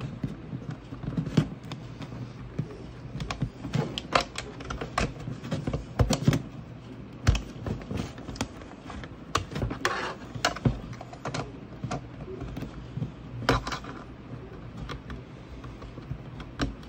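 Irregular metallic clicks and small knocks of BNC plugs on RG59 coaxial camera cables being pushed onto and twisted into the sockets on the back of a CCTV DVR, with the cables being handled.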